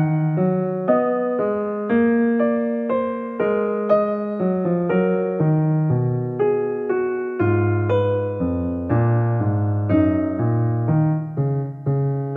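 Calm background piano music: a slow melody of struck notes and chords, each note fading after it is played, with deeper bass notes joining about halfway through.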